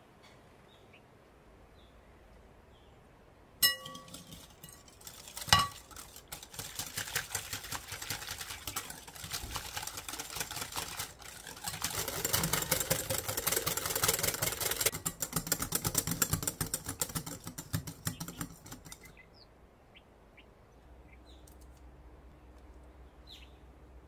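Hand whisk beating cream with cocoa in a glass bowl: rapid scraping and clicking of the wires against the glass for about thirteen seconds, busiest in the middle, after a ringing clink of the bowl.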